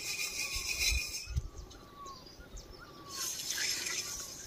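Intermittent scraping and rubbing, loudest in the first second and again near the end, with a few low thuds. Between them a bird gives a run of short falling calls.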